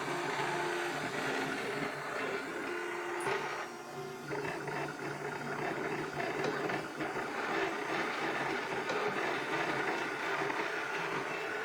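Wanhao Duplicator 4 3D printer running, its motors holding short steady notes that change as the machine moves, with scattered knocks that come from worn bearings.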